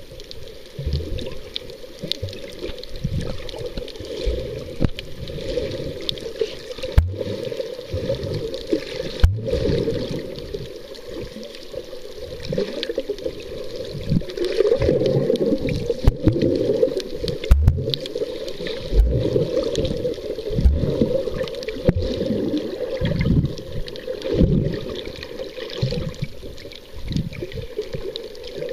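Muffled underwater sound picked up by a submerged camera: water gurgling and sloshing, with irregular low swells.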